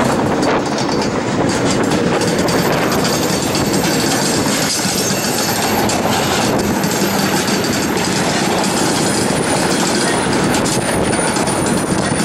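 Freight train of covered hopper cars rolling slowly past, with a steady rumble and clatter of steel wheels on the rails. A faint high-pitched squeal rides above it from about a second in.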